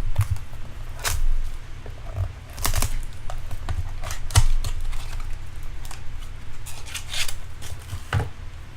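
Trading card box and its wrapping being opened and the cards handled: scattered short tears, crinkles and light cardboard clicks at irregular intervals.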